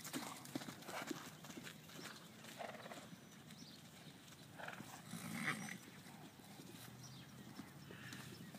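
Faint hoofbeats of several horses galloping over a grass pasture, dull irregular thuds throughout. About five seconds in, one of the horses gives a short call, the loudest sound.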